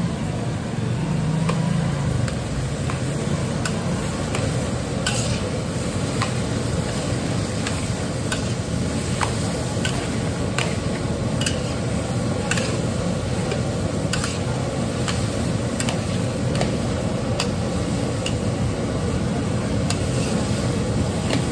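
A long-handled metal spatula stirring and scraping diced potatoes with spices in a large iron kadhai, with frequent sharp clicks of metal on the pan over a steady sizzle.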